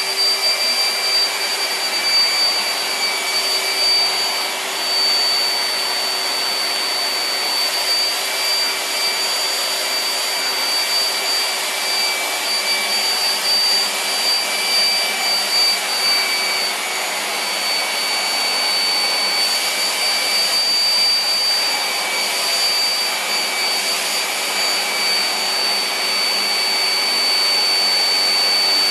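Vacuum cleaner running steadily, a constant rushing noise with a high, even motor whine.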